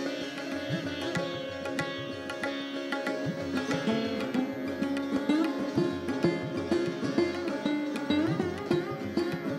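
Hindustani classical instrumental music: sitar and sarod playing plucked melodic phrases over a steady drone, accompanied by tabla whose bass drum strokes swoop in pitch.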